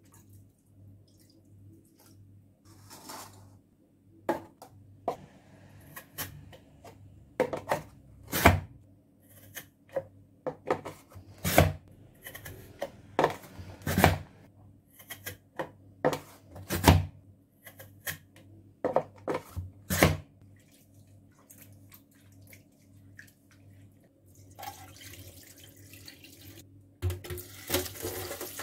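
A series of irregular sharp knocks and thumps, roughly one a second, as potatoes are pressed down through a plastic chip cutter. Near the end a kitchen tap runs into a steel pot of cut potato sticks.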